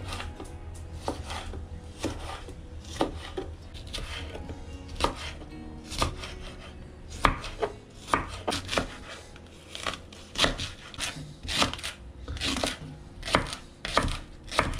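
Kitchen knife chopping vegetables on a wooden cutting board: a string of sharp knocks as bell peppers and leek are sliced, coming faster in the second half.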